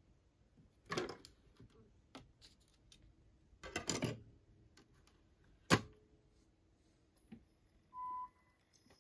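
Rega Planet top-loading CD player being handled: clatter and clicks from the lid and disc about one second and four seconds in, then one sharp click near the middle. Near the end the play button is pressed and a short, high, steady beep sounds.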